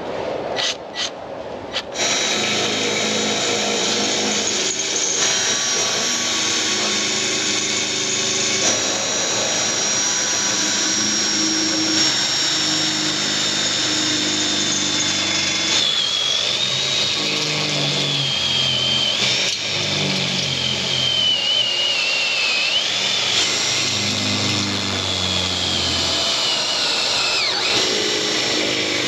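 Power drill with a step drill bit boring through metal: a few short bursts, then running continuously with a high, wavering squeal from the bit cutting.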